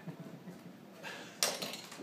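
Quiet room tone broken by a single sharp knock about one and a half seconds in.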